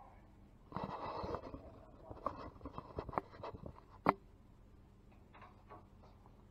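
Handling noise from a small camera being picked up and set into place: a burst of rubbing about a second in, then a run of clicks and knocks, the sharpest about four seconds in.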